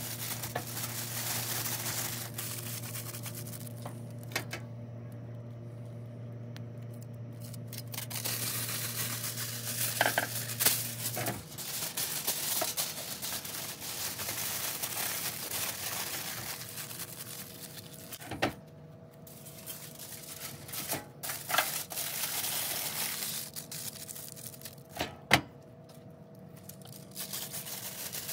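Aluminum foil being pulled off the roll, torn and crinkled as it is wrapped around ears of corn, with a few sharp crackles and taps. A low steady hum runs under it and cuts off about eleven seconds in.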